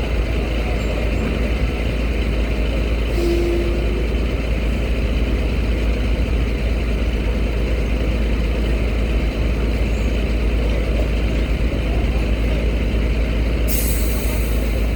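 Heavy truck engines running in a steady low rumble as vehicles board a ferry, with a short steady tone about three seconds in and a brief burst of hiss near the end.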